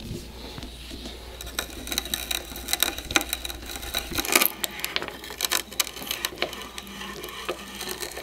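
Auger bit boring through a wooden tenon: a dense, irregular crackle of wood fibres being cut and shavings breaking away, starting about a second and a half in.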